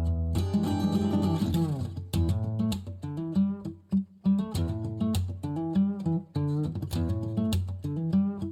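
Background music: plucked and strummed guitar with a steady beat.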